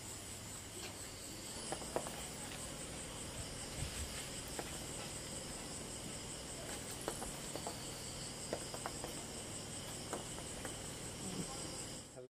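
Crickets chirring steadily, several high trills layered together, with a few faint clicks and knocks scattered through.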